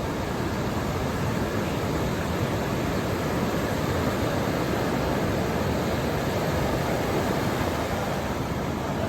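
Ocean surf breaking on a beach: a steady wash of noise from the waves that swells a little in the middle and eases off toward the end.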